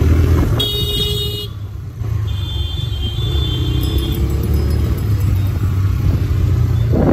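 Vehicle horns honking in city traffic: a short honk about half a second in and a longer, higher one from about two to four seconds. Beneath them is the steady low rumble of the riding motorcycle's engine and road noise.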